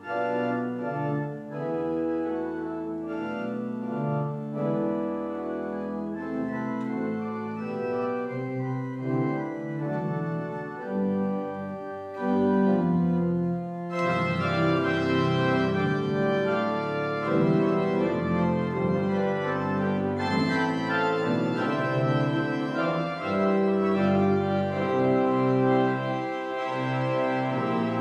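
Church pipe organ playing sustained, slowly changing chords. About halfway through it becomes louder and brighter, with a fuller sound.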